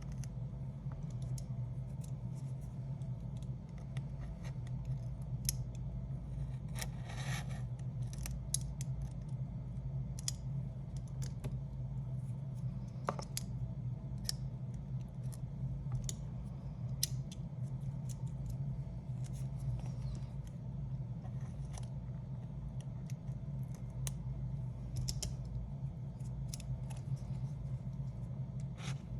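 Irregular small clicks and scrapes of hand tools working on an opened iPad's frame, with a short scraping stretch about 7 seconds in, over a steady low hum.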